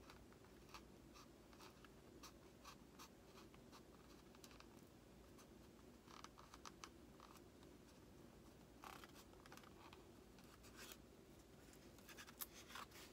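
Faint, irregular scratching of a craft knife blade cutting through a foam model-aircraft panel, in short clusters of strokes that are loudest near the end, over a faint steady hum.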